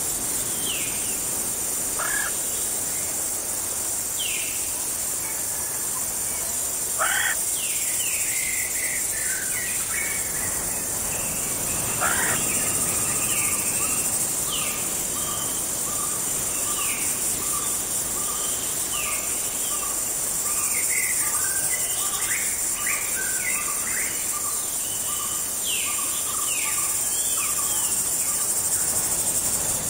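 Jungle ambience: a steady high-pitched chorus of crickets with scattered bird calls, mostly short chirps that slide downward. Through the middle stretch a bird repeats one short note over and over, about one and a half times a second.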